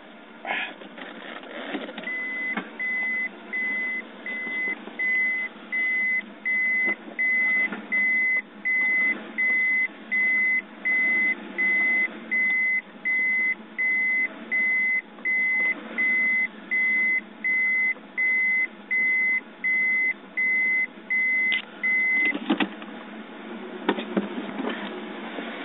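Electronic beeping: one high tone repeating evenly, about one and a half to two beeps a second, starting about two seconds in and stopping some twenty seconds later. A few clicks or knocks follow near the end.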